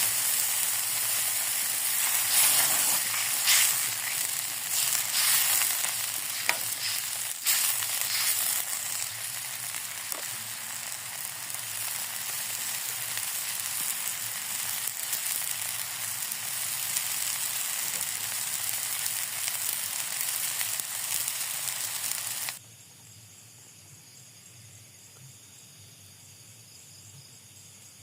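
Food frying in hot oil in a pan: a loud, steady sizzle with frequent small crackles. It stops abruptly about 22 seconds in, leaving a faint steady high-pitched background.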